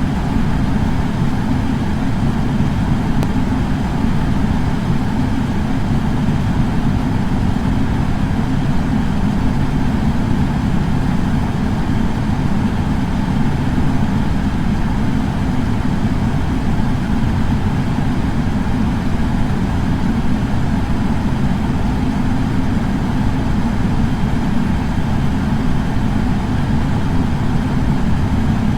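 Air purifier fan running steadily: an even rush of air with a deep, low hum beneath it.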